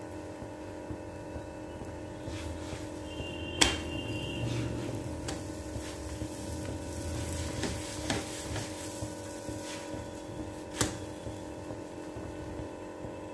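Metal spatula knocking and scraping on an iron tawa a few times, the sharpest knock about three and a half seconds in, as a puran poli frying in oil is pressed and folded, over a steady hum.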